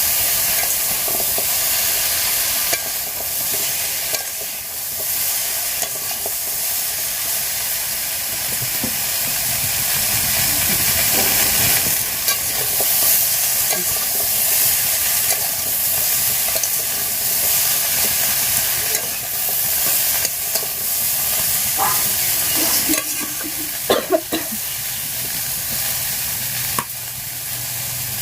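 Food frying and sizzling in a pan, a steady hiss, with occasional scrapes of stirring and two sharper knocks near the end.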